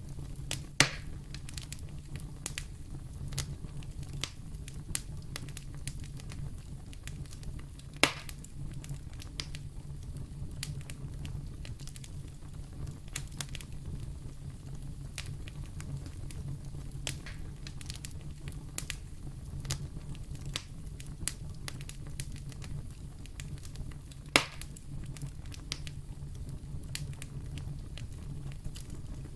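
Wood fire burning in a fireplace: a steady low rumble of flames with frequent small crackles and three loud pops, about a second in, at about eight seconds and near twenty-four seconds.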